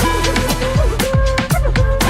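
K-pop music playing: a steady drum beat under held synth notes and bass, with no singing in this stretch.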